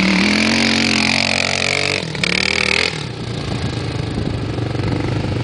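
600 cc single-cylinder four-stroke dirt bike engine revving hard, its pitch sliding down over about two seconds, then a brief break, after which it drops to lower, steadier running about three seconds in.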